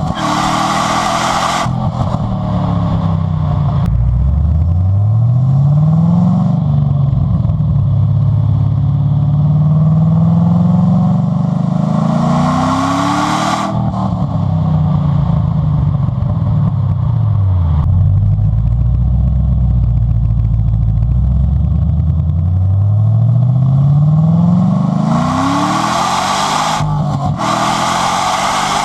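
Chevy SS's 6.2-litre V8 exhaust under way: the engine note climbs in pitch as it accelerates, drops back, and climbs again twice, with a rushing hiss at the peaks.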